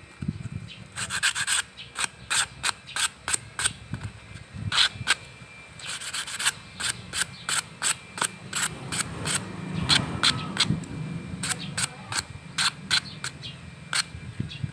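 Scrubbing strokes on a dirty, oily vehicle alternator as it is cleaned, quick back-and-forth rubs about two to three a second with a short pause about four seconds in.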